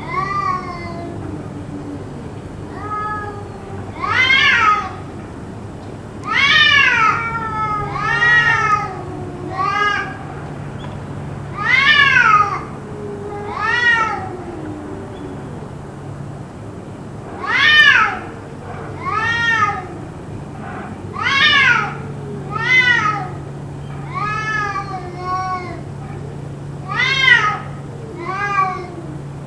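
A cat meowing over and over, loud drawn calls that rise and then fall in pitch, one every second or two, with a lower, fainter wavering call running beneath them. The uploader wonders whether it is a cat fight.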